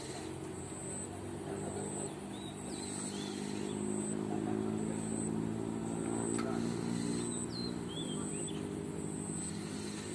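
An engine running steadily, growing louder toward the middle and dropping slightly in pitch about eight seconds in.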